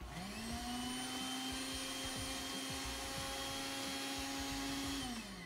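Countertop blender motor switched on, spinning up quickly, running at a steady pitch for about five seconds, then winding down. It is working on a thick load of roasted pumpkin with only a little condensed milk added, which it is not managing to purée.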